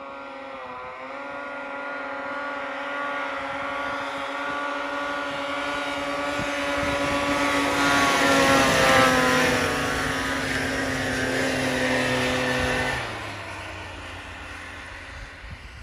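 Snowmobile engine running at steady high revs, growing louder as the sled approaches. It passes close about eight seconds in with a rush of spraying snow, its pitch dipping slightly, then the sound drops off sharply about thirteen seconds in and fades as it rides away.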